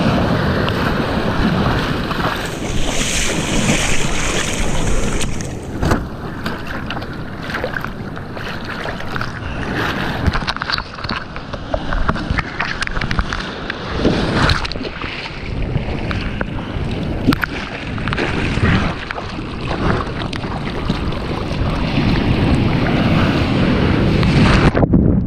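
Breaking ocean whitewater rushing and splashing around a surfboard as it is paddled out through the surf, with wind buffeting the microphone and many short splashes throughout.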